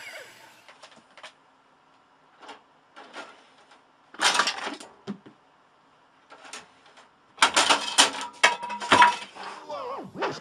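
Bursts of clattering and knocking, hard objects rattling and banging against each other, in separate bunches, the loudest about four seconds in and again for a couple of seconds near the end.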